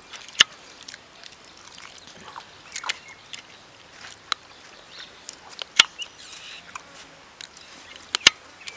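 Close-up chewing and lip-smacking while eating a piece of fried rabbit meat, with irregular wet smacks and clicks. The loudest smacks come about half a second in, near six seconds and twice just after eight seconds.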